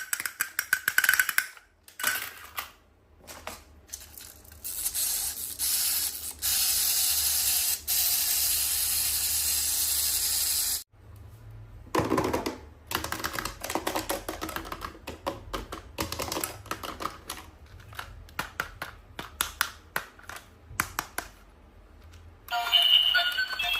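Quick clicks and taps from toys and packaging being handled, with a steady hiss lasting about four seconds in the middle. Music starts near the end.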